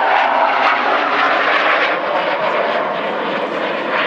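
Aermacchi MB-339 jet engine noise: a steady rushing sound that eases slightly toward the end.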